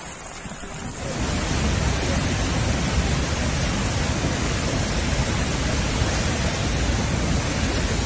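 Floodwater pouring over a dam spillway: a loud, steady rush of water that cuts in suddenly about a second in, after a quieter hiss.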